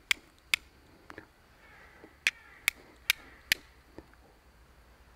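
Steel striker hitting a flint, sharp clicks: two strikes, a pause of about a second and a half, then four more in quick succession about twice a second, with a few fainter knocks between. The sparks are thrown onto a piece of tinder-fungus trama layer rubbed with wood ash to catch an ember.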